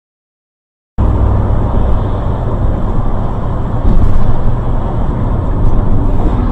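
Steady low rumble of a moving vehicle's road and engine noise, as picked up by a dash cam; it cuts in abruptly about a second in, after silence.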